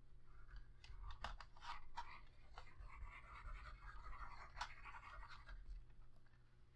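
Faint scratchy rubbing of a squeeze bottle's nozzle dragged across kraft chipboard as liquid glue is laid down in wavy lines, with a few light clicks.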